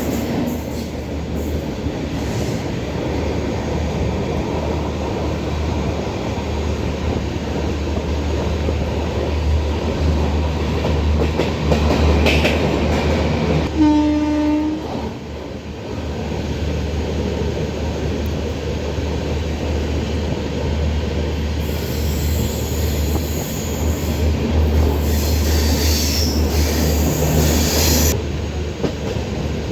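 Passenger train running on the rails, a steady rumble and clatter heard from on board by an open window, with one short horn blast about halfway through and a brighter hiss for several seconds near the end.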